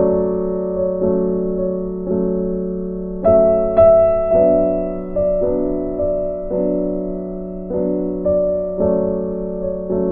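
Background music: slow, gentle piano with an electric-piano sound, a new note or chord struck roughly once a second over a sustained low note.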